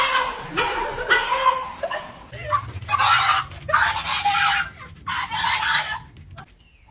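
A cat meowing over and over, about five separate calls.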